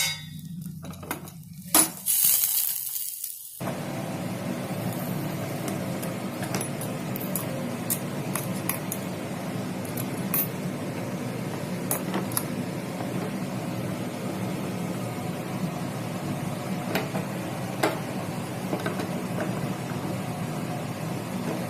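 Stovetop sandwich toaster clicking and clattering as its metal halves are shut over the oiled bread, then, after about three and a half seconds, a steady sizzle with occasional small pops as the sandwich toasts over a low gas flame.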